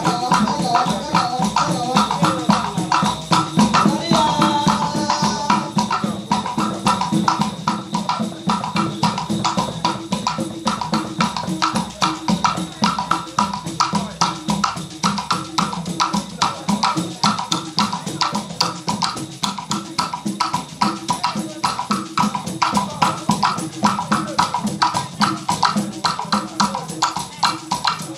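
Small hand drums and percussion played in a fast, steady, driving rhythm for a traditional dance.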